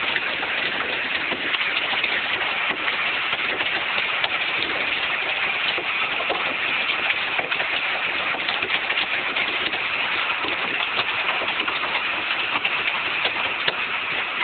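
Hail falling hard and steadily onto a lake: a dense hiss of countless small impacts on the water, with no let-up.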